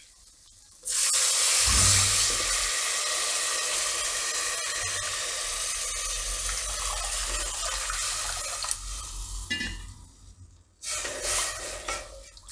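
Water poured into a steel pot of hot oil tempering (cumin, peanuts, sesame, turmeric), hissing and sizzling loudly as it hits the oil and slowly fading over about eight seconds. About a second after it dies down, a shorter burst of noise as the pot is stirred.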